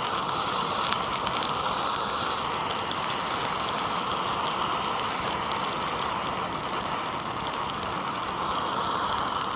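A gas torch flame sounds steadily as it burns wax and plastic out of a ceramic shell mold, with a fine crackling over it.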